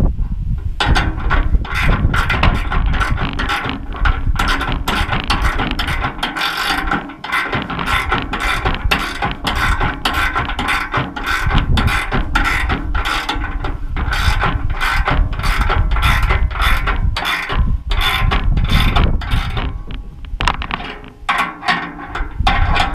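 Ratcheting gear wrench clicking rapidly and continuously as bolts are run in on a motorcycle hitch rack.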